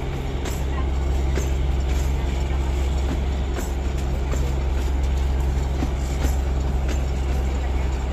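Narrow gauge passenger train running, heard from a carriage window: a steady low rumble with regular clicks of the wheels over rail joints, about two a second.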